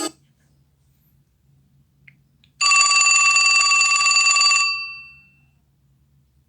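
A short classic LG ringtone, a telephone-bell-style ring of a few steady tones with a fast buzz, played from an LG G8 ThinQ's loudspeaker. It starts about two and a half seconds in, lasts about two seconds and then fades out.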